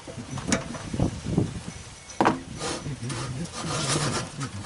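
A bench drill press's iron table being handled and adjusted by hand: a sharp knock about two seconds in, then scraping and rubbing.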